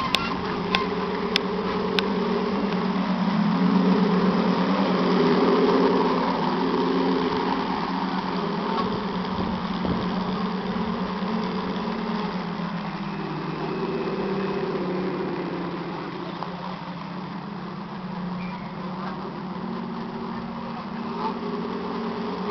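A radio-controlled 1/12-scale Mersey-class lifeboat model running on the water, its Action Electronics engine sound unit giving a steady buzzing engine drone. The drone swells louder a few seconds in and eases off later; a few sharp clicks come in the first two seconds.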